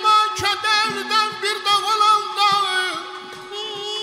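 Azerbaijani folk music: a balaban, a double-reed wooden pipe, plays a loud, ornamented melody over a steady low drone. The melody phrase ends about three seconds in and the drone carries on.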